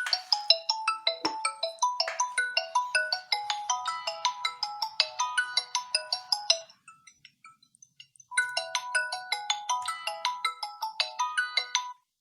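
Xiaomi Redmi Note 9's default incoming-call ringtone: a quick melody of bright, plucked-sounding notes. It breaks off for about two seconds midway, starts again, and cuts off suddenly near the end.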